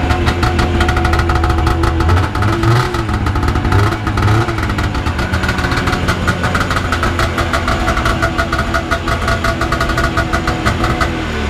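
Vintage Yamaha Excel III 340 snowmobile's two-stroke engine running steadily at idle. Its revs rise and fall a few times about two to four seconds in.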